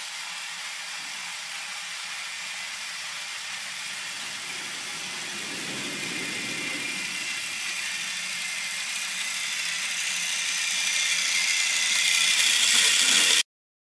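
Battery-powered Plarail toy E1 Series MAX Shinkansen running along plastic track, its small electric motor and gears running steadily. It grows louder as the train approaches, then cuts off suddenly near the end.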